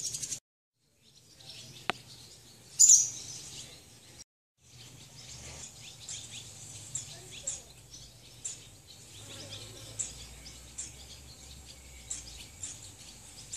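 Nestling birds in a mud nest chirping: short, high, thin calls repeating every second or so, with a louder burst of calls about three seconds in.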